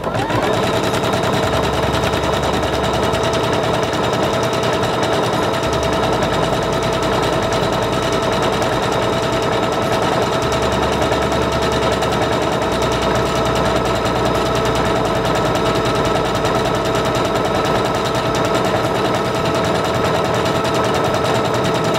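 SINGER Confidence 7640 electronic sewing machine running steadily, a whir with rapid needle clatter, as it stitches a decorative starburst stitch at a very short stitch length of 1. It starts right away and stops near the end.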